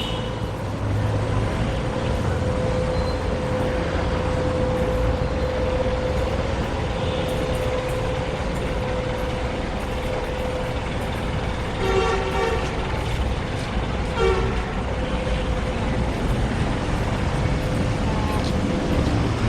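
Steady road traffic rumble with a constant drone. Two short vehicle horn toots sound about two seconds apart, roughly twelve and fourteen seconds in.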